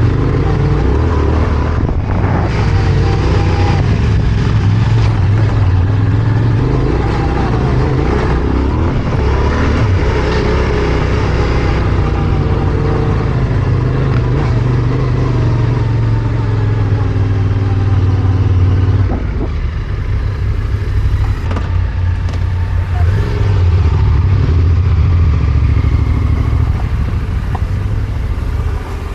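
Yamaha Ténéré 700 motorcycle's parallel-twin engine running steadily as it is ridden off-road, easing off about two-thirds of the way through and picking up again, with a few knocks.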